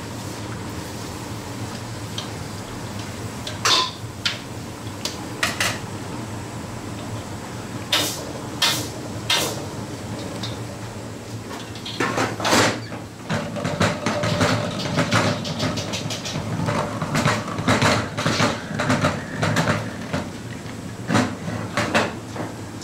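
A bench-mounted crank can opener cutting round tins of coconut milk gives a dense run of clicks and rattles with a short whine, from about halfway on. Before it there are a few separate metal clinks. A steady low kitchen hum lies under both.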